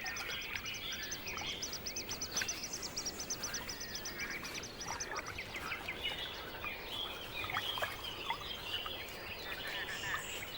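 Great crested grebe chick calling persistently for a parent: a fast run of short, high-pitched peeps that breaks off about five and a half seconds in, with other scattered bird chirps throughout.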